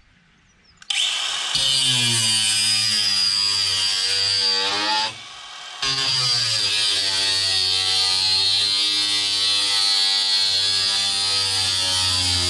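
Electric power tool cutting through a thick cable. It starts about a second in and runs with a steady high whine, eases off for under a second around five seconds in, then runs on steadily.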